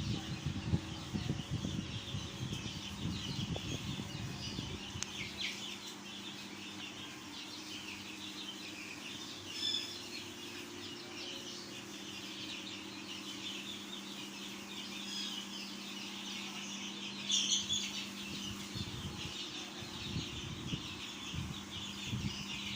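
A flock of young chicks peeping continuously, many high chirps overlapping, over a steady low hum.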